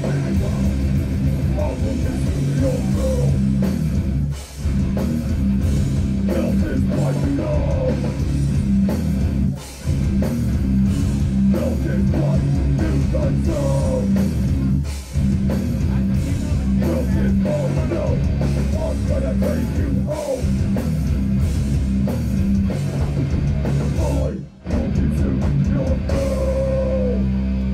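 Hardcore band playing live with distorted guitars, bass and drum kit in an instrumental stretch of a heavy song. The whole band stops dead for a split second four times.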